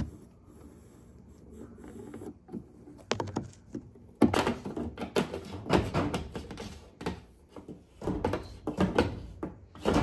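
Fish tape and a hooked wire scraping and rubbing against wood as they are worked up through a wall's top plate, in irregular bursts of rasping and knocking. A few clicks come about three seconds in, after a quiet start.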